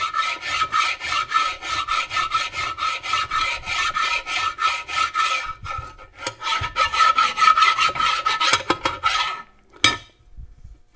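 A long flat file draw-filed back and forth over the aluminium side-cover gasket surface of a Muncie 4-speed transmission case, in quick rasping strokes about four a second with a ringing tone, taking down high spots and raised metal to square the surface. The strokes pause briefly partway through, resume, then stop, followed by a single knock.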